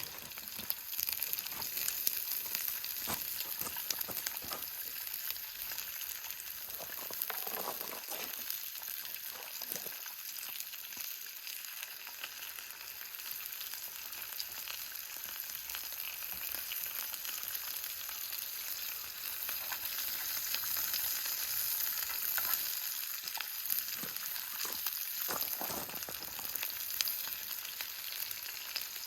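Food frying in a pan: a steady sizzling hiss with fine crackles and pops.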